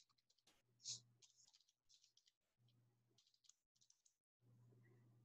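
Near silence with faint computer keyboard key clicks, scattered, the clearest about a second in, over a faint low hum that comes and goes.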